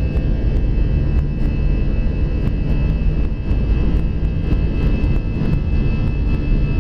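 Airbus A320 jet engines running at high power, heard inside the cabin as the airliner rolls fast down the runway on its takeoff run. There is a steady whine over a heavy low rumble, with faint light clicks scattered through.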